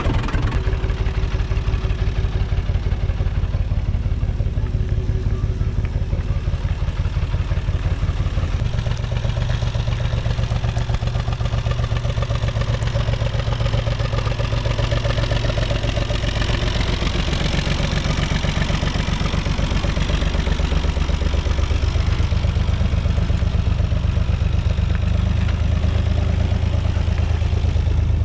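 UTB 445 tractor's four-cylinder diesel engine running under way with a steady, even chug. Its engine note changes a couple of times, about a third of the way in and again past two-thirds.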